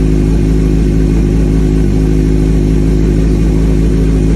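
2003 Suzuki GSX-R750's inline-four engine running steadily at idle, just started after fresh oil, a new filter and new spark plugs.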